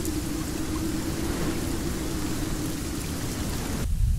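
Rain sound effect: a steady hiss of heavy rain, with a faint steady hum beneath it. The hiss cuts off abruptly near the end, leaving a low rumble.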